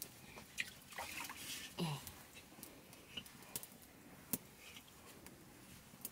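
Cooking liquid dripping and trickling from a tilted, blackened cooking pot into a metal bowl, with small clicks and clinks of the pots.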